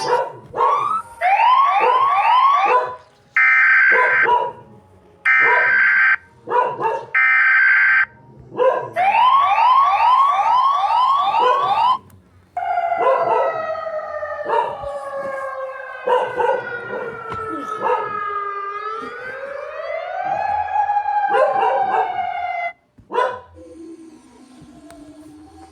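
Mock emergency-alert-system alarm audio. Runs of quick rising chirps, about two or three a second, surround three one-second bursts of buzzy header tones. Then comes a long electronic siren tone that slides slowly down, swings back up, and cuts off suddenly a few seconds before the end.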